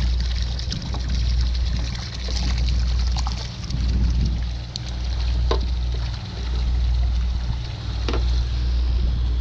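Water sloshing and splashing in a live-bait bucket as jack smelt are scooped out with a small dip net. Under it runs a low rumble that swells and fades every second or so, and there are a couple of sharp clicks near the end.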